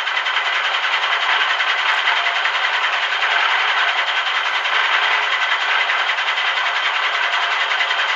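Steady rattling, rolling noise of the Mack transport truck, even throughout, with no deep rumble underneath.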